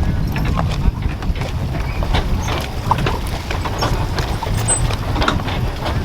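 Bass boat running across the water: a steady low wind rumble on the microphone with the hull knocking irregularly against the chop.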